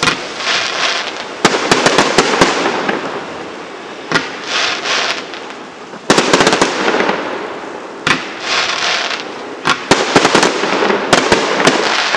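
Aerial fireworks display: shells bursting with sharp bangs every second or two, with stretches of crackling between the bursts.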